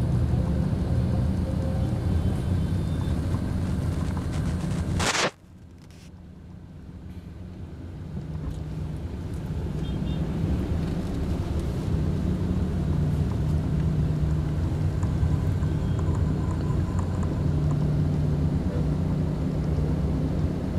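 Steady low hum of a car engine and the surrounding traffic, heard from inside the cabin while creeping in a traffic jam. About five seconds in a sharp click cuts the sound off, and the hum then fades slowly back up.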